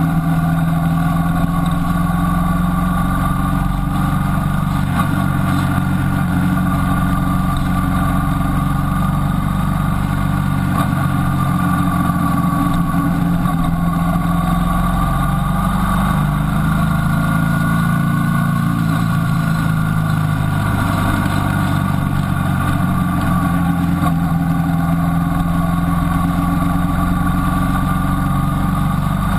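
Motorcycle engine running at a steady cruise, its pitch rising and dipping a little about halfway through.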